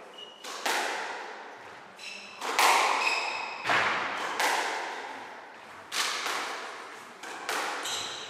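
Squash rally: the ball cracks off rackets and walls about once a second, each hit ringing out in the echoing court, with a few short squeaks of court shoes on the wooden floor.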